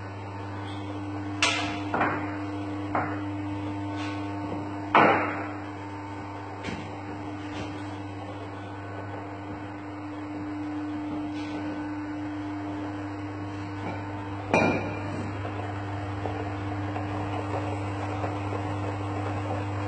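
Steady electrical hum in a kitchen, with a handful of sharp knocks and clinks of crockery and metal being handled. The loudest knocks come about five seconds in and again near fifteen seconds.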